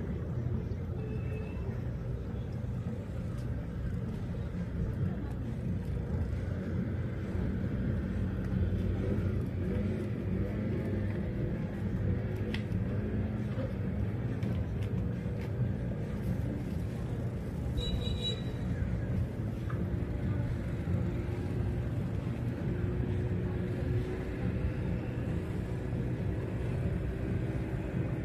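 An engine runs steadily with a low rumble. A brief high chirp comes about two-thirds of the way through.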